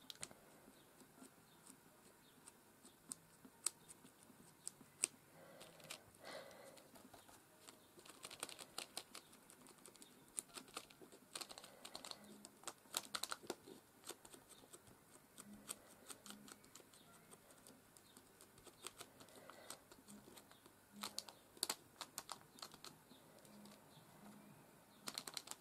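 Quiet, irregular taps and clicks of a sponge dauber dabbing paint through a plastic stencil onto card, with a few faint guitar notes in the distance from about halfway through.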